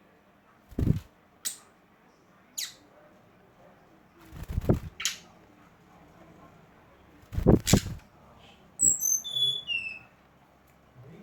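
Songbird calling: short sharp high chirps, then near the end a quick run of short whistles stepping down in pitch. Several low thumps sound between the calls, the loudest about two-thirds of the way in.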